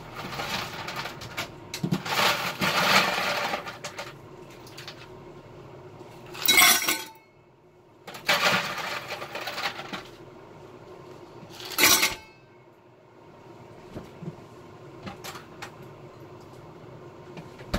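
Ice cubes clattering and rattling into a stainless steel tumbler in several bouts, the sharpest about six and twelve seconds in, then a few light clicks. A faint steady hum runs underneath.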